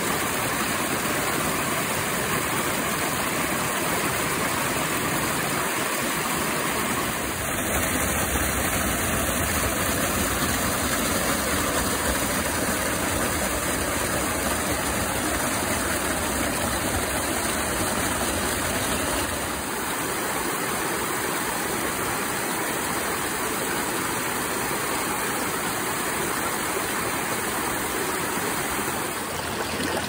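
Rainfed creek water rushing and splashing down small rocky cascades in a steady torrent, the creek running high after a night's rain. The rush changes slightly in level and character about a quarter of the way in and again about two thirds in.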